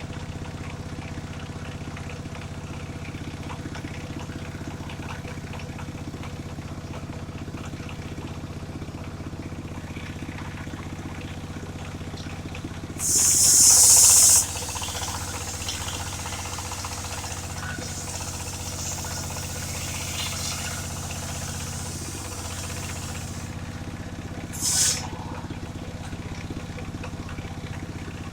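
The engine of a portable circular sawmill runs steadily. A loud hiss comes about halfway through and lasts a second and a half, and a short one comes near the end.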